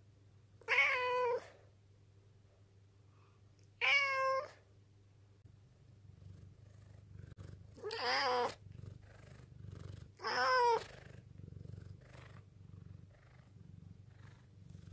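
Black domestic cat meowing four times, one drawn-out husky 'nyaa' about every three seconds, the third one raspier than the rest. It is a hungry cat begging for its food.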